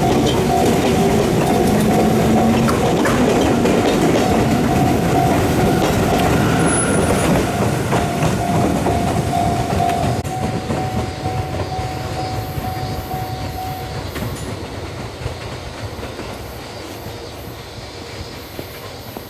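Electric train of the Fujikyuko Line passing close by, wheels clacking over the rail joints, with a steady high whine that stops about 14 seconds in. The sound fades steadily as the train moves away.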